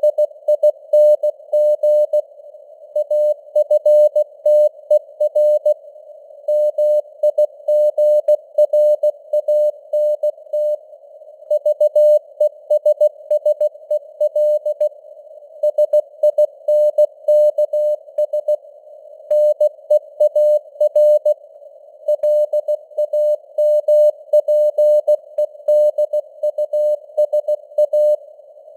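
Morse code at 16 words per minute: a single mid-pitched tone keyed on and off in dots and dashes, with short pauses between words. Simulated radio band noise hisses around it, and the signal fades up and down (QSB).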